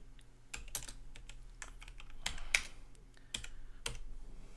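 Typing on a computer keyboard: irregular key clicks at an uneven pace, one stroke louder than the rest about two and a half seconds in.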